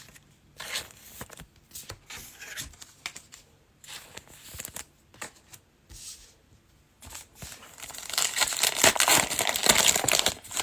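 A foil trading-card pack wrapper being handled and torn open: soft rustling and card handling at first, then louder crinkling and tearing from about eight seconds in.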